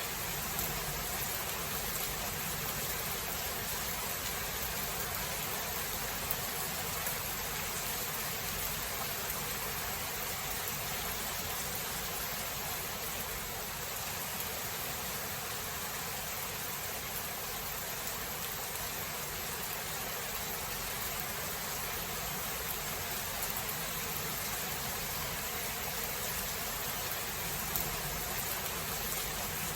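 Steady rain falling: an even hiss with fine ticks of drops, no thunderclap standing out, just a tiny bump near the end.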